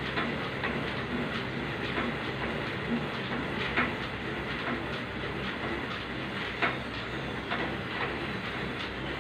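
Elliptical cross trainer running under steady pedalling: a continuous whir from the flywheel and linkage, with a click about once a second as each stride comes round.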